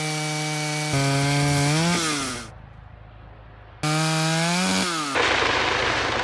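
Vintage Stihl 056 two-stroke chainsaw running. It revs up and eases off, drops much quieter for over a second, then comes back loud and rising. Near the end it turns into a rougher, noisier sound as the chain cuts through the log.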